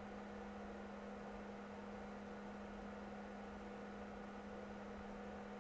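Faint steady electrical hum: one low tone with a fainter higher tone above it, over quiet room tone.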